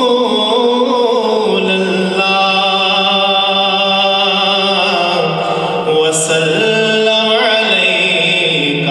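A man singing a devotional naat into a microphone, holding long drawn-out notes that shift in pitch every couple of seconds.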